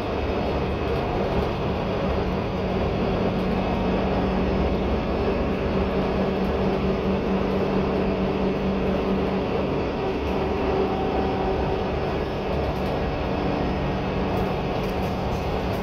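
Cabin sound of a 2021 Gillig Low Floor 40 ft transit bus: its Cummins L9 inline-six diesel running with a steady drone over a low rumble.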